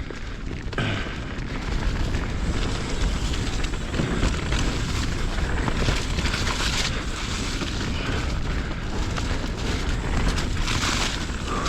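Mountain bike rolling over rough dirt trail: tyres rumbling and the bike rattling, with wind buffeting the microphone as a steady deep rumble.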